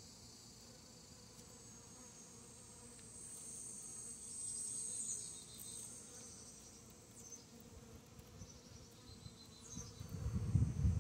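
Bees buzzing as they fly around a water bowl to drink, with a louder, lower buzz about ten seconds in as one passes close. A high, steady insect trill runs behind.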